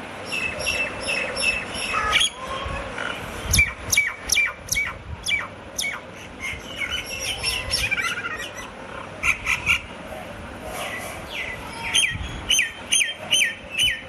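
Pair of Laysan albatrosses in their courtship dance: quick runs of sharp bill clacks mixed with short high calls, four or five in a row, repeated several times.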